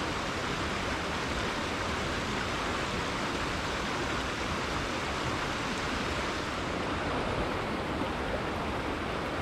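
River water flowing steadily over rocks, an even rushing with no breaks or changes.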